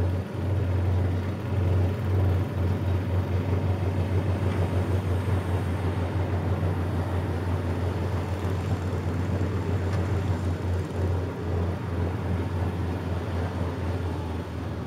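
Small engine of a riding lawn tractor running steadily as it drives along, a throbbing low hum.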